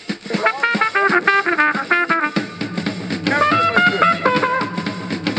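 Jazz music: a trumpet plays a quick run of notes over a drum kit.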